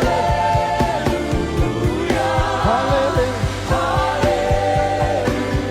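Live gospel worship song: voices sing long held notes over a band with a steady bass line and beat.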